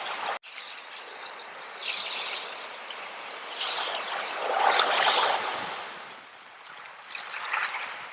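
Sea water washing over and draining back through a bed of shells, the shells clinking in the wash. It comes in surges: about two seconds in, a louder one around five seconds, and another near the end.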